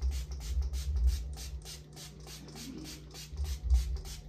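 Spray bottle of anti-humidity hair spray being pumped over and over in short hissing spurts, about three a second, with a low thudding underneath.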